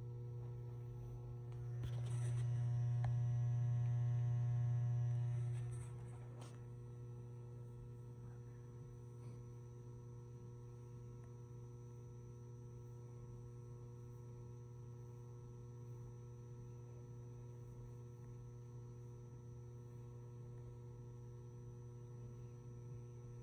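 Ballast of a 150-watt high-pressure sodium flood light humming steadily at mains frequency. The hum swells louder, with more overtones, for about four seconds near the start, then settles to a steady level.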